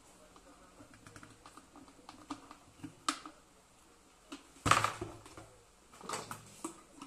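Stainless-steel electric kettle and its parts being handled on a workbench during repair: a run of small clicks and taps, a louder clunk about halfway through, and a few more knocks near the end.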